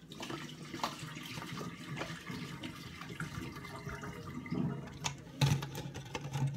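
Hot water being emptied from two plastic bottles into a kitchen sink, running and splashing steadily, with a few knocks near the end as the bottles are handled and set down.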